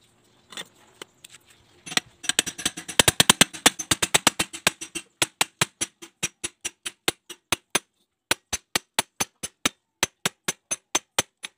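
Hammer blows driving a cylinder sleeve into the block of a Kubota DH1101 diesel engine: a quick run of metallic taps, about six a second, then steadier blows about three a second with a brief pause between them, as the sleeve is tapped home.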